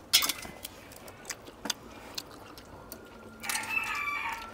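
Sharp clicks and clinks of snail shells and utensils, the loudest just after the start. About three and a half seconds in, a drawn-out animal call of about a second with several held pitches, in the manner of a rooster crowing.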